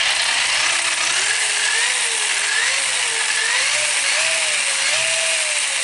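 Tamiya Gravel Hound RC buggy's newly fitted brushless motor and drivetrain running on the bench on its first power-up, wheels spinning free: a steady whirr with a motor whine that climbs over the first couple of seconds, then wavers up and down with the throttle.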